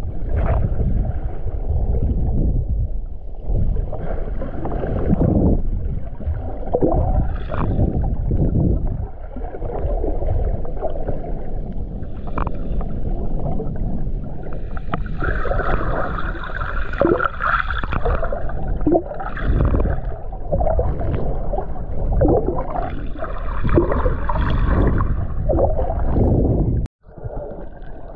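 Muffled underwater noise picked up by a camera held underwater: a steady low rumble and sloshing of water against the housing, with a few louder hissing stretches. The sound briefly cuts out near the end.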